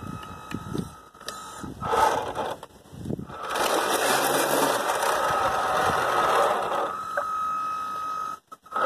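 Twin Kyosho Le Mans 360 ST electric motors of an RC model boat's outboard drive, running with a steady high whine, with water churning around the propeller. From about three and a half seconds in it gets much louder and stays so until a brief cutout near the end.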